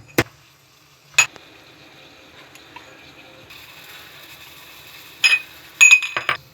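Mortar and pestle pounding whole spices: a few sharp knocks at the start and about a second in, then a quiet stretch with a faint steady hiss, and a quick run of knocks near the end.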